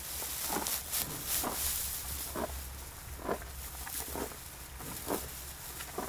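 White rhinoceros grazing: short tearing and chewing strokes about once a second as it crops grass and hay, with the dry hay rustling between them.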